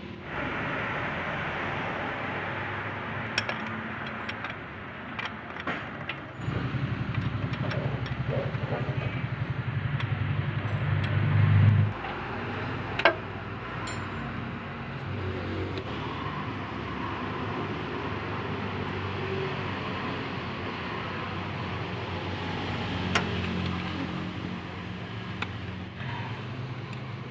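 A motor vehicle's engine running nearby, with a louder, pulsing stretch of engine noise that grows for about five seconds and then cuts off abruptly. A few light clicks and one sharp metallic clink of hand tools come from work at the starter mounting.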